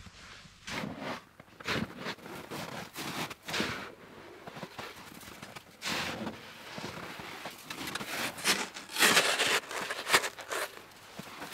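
A snow shovel scraping and crunching into deep, packed snow in irregular strokes, with steps crunching in the snow. The loudest scraping comes about nine to ten seconds in.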